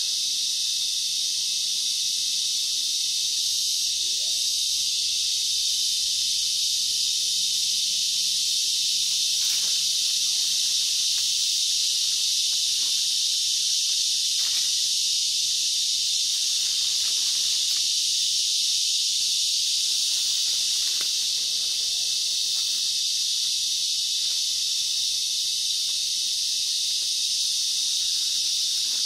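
Dense chorus of rainforest insects: a steady, high, unbroken drone.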